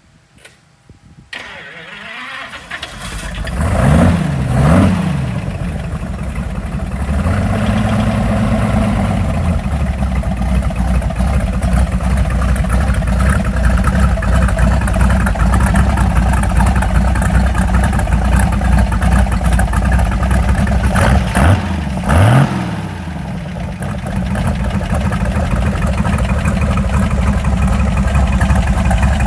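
A GMC 702 V12 gasoline engine in a Studebaker hot rod starts up, is blipped twice, and settles into a steady idle. Two more quick revs come a little past the twenty-second mark.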